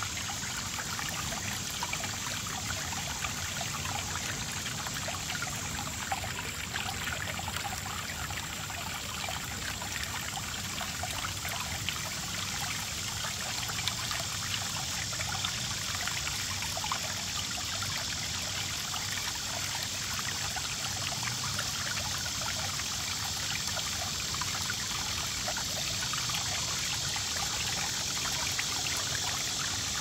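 Water from a boulder fountain welling up over the top of the rock and trickling and splashing down its face into a pool, steady and unbroken.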